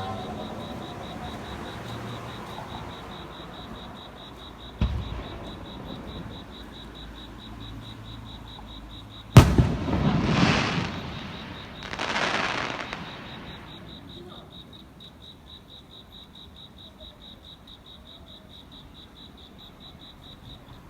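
Aerial fireworks: a single bang about five seconds in, then a sharper, louder bang about nine seconds in followed by two long crackling rushes that fade away.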